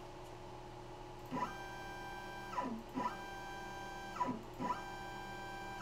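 X-Carve CNC router's stepper motors jogging the spindle head up and across, in three short moves of about a second each. Each move is a whine made of several tones that rises in pitch as the motors speed up, holds steady, and falls as they slow to a stop.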